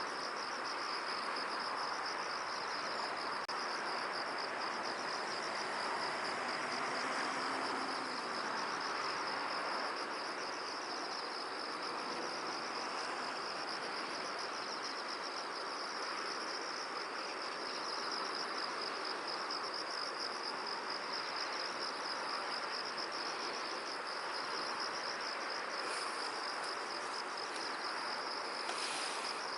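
Insects chirring in a continuous, rapidly pulsing high trill, over a steady hiss of wind through the field.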